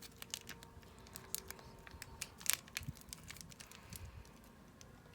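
Clay packaging crinkling and crackling in the hands as the clay is taken out: scattered sharp crackles, the loudest about two and a half seconds in.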